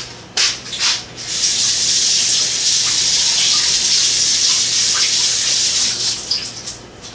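Kitchen sink faucet running steadily for about five seconds while a cooking utensil is rinsed under it, then turned off. A couple of light knocks come just before the water starts.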